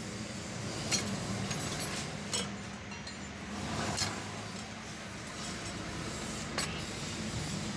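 Metal clutch parts of a scooter-type centrifugal clutch (clutch shoes and clutch bell) clinking as they are handled: four short, sharp clinks spread a second or two apart, over a steady low hum.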